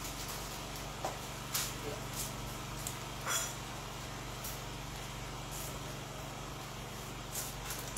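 Eating by hand: scattered soft clicks and smacks from fingers working through food on a wooden tray and from chewing. A steady low electrical hum from the microphone runs underneath.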